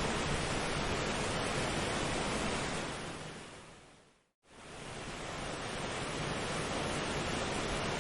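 Steady rushing nature ambience, like surf, that fades out to silence a little over four seconds in and then fades back up.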